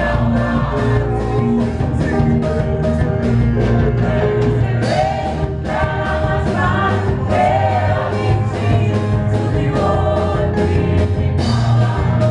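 Live gospel worship band playing: keyboard and drum kit with a steady beat, and singers at microphones leading the song.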